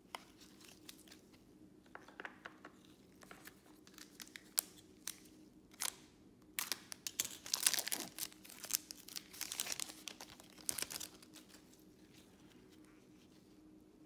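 Foil wrapper of a Panini Select baseball card pack being torn open and crinkled, with scattered light clicks of cards being handled. The crinkling comes in a dense run about halfway through.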